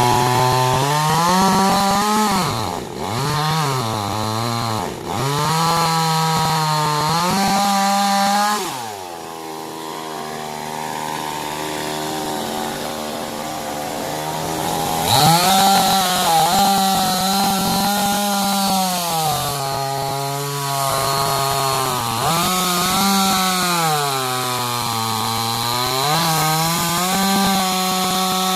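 Two-stroke chainsaw running at high revs, the pitch dipping and recovering as it cuts through wood. About nine seconds in it falls back to a low idle, then revs up sharply about six seconds later and cuts again.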